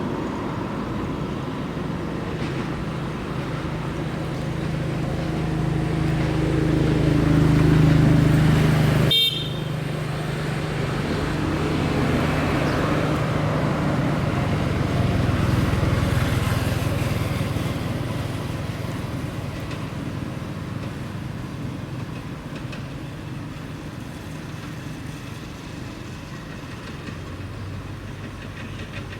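A motor vehicle running, with a steady low drone that grows louder and breaks off suddenly about nine seconds in, then goes on as a steady road-noise hum that slowly fades.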